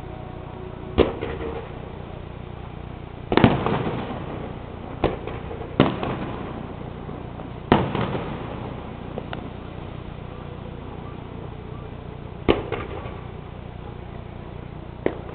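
Aerial firework shells bursting: about seven sharp bangs at uneven intervals, each followed by a short echoing tail, over a steady low background noise.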